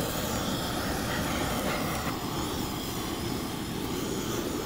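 Handheld butane blowtorch flame blowing steadily as it torches the skin of a braised pig's trotter.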